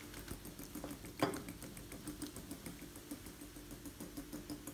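Sparkling mineral water fizzing in a glass bowl of beaten eggs, oil and yogurt: a faint, fine crackle of bursting bubbles, with one light click about a second in.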